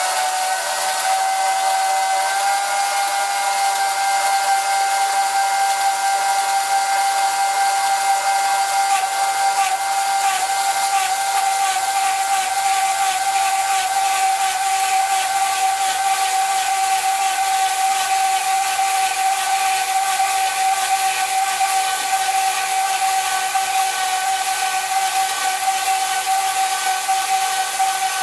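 Small home-built bandsaw with a brushed motor on a PWM speed controller, running and cutting through a 12 mm aluminium bar: a steady high whine that climbs slightly in the first couple of seconds and then holds, over a steady hiss.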